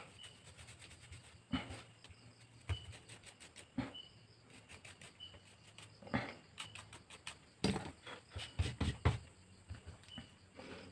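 Irregular small clicks and taps of hand tools handling the parts of an opened Oppo A53 smartphone during repair, bunched together around the middle. A faint short high chirp recurs about once a second.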